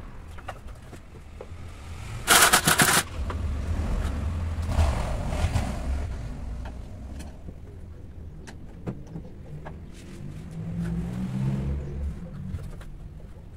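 A passing motor vehicle's engine rumbles, with a low hum that swells near the end, and a sharp loud hiss lasts under a second about two seconds in; light knocks and clicks are scattered throughout.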